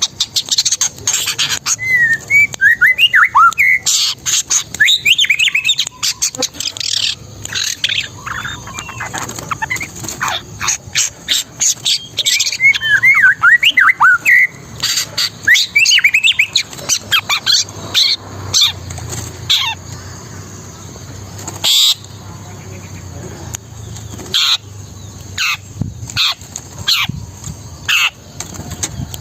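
Long-tailed shrike (cendet) singing in a fast, nonstop run: harsh clicking and chattering notes mixed with warbled phrases mimicking other birds' songs.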